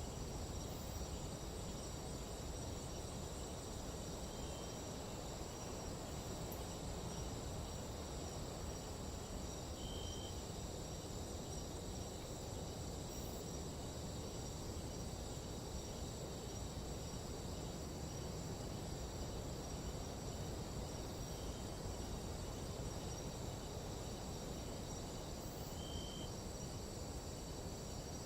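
Night-time tropical forest insect chorus: several insects trilling steadily at high pitch, over a steady low rush of noise. A few short, higher chirps stand out now and then.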